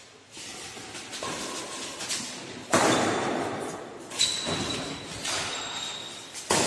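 Badminton rackets striking a shuttlecock during a doubles rally: several sharp hits a second or more apart, the loudest about three seconds in, each echoing in the large hall.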